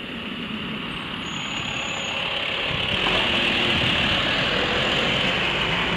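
Flatbed tow truck carrying a car driving past: engine rumble and tyre noise growing louder over the first three seconds or so, then holding steady.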